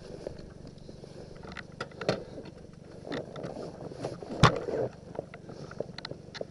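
Scattered knocks and scuffs over a faint low hum, with one sharp knock about four and a half seconds in, as the stopped motorcycle and its camera mount are jolted and shifted.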